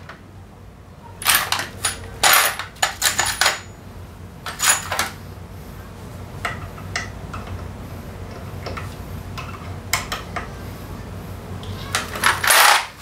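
Steel sockets clinking and clattering as a hand rummages through a tray of them, several quick rattles in the first few seconds, scattered single clicks after, and a louder clatter near the end.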